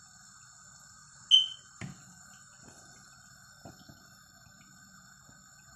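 Quiet kitchen with a faint steady hum. About a second in comes one short, loud, high chirp, then a few faint clicks of a slotted spoon against a nonstick pan as jalebis are held down in sugar syrup.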